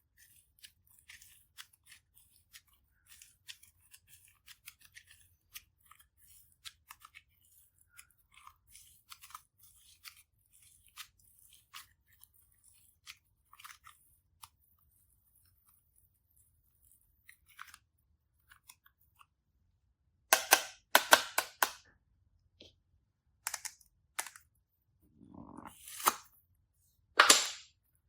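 Slime being squished and worked by hand: a run of small crackling clicks, a quiet spell, then louder crunchy squelches in several bursts near the end.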